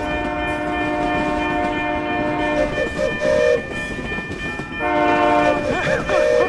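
Train horn sounding a steady multi-note chord for about three seconds, then a short lower toot, then a second horn blast about five seconds in, over the running noise of a train.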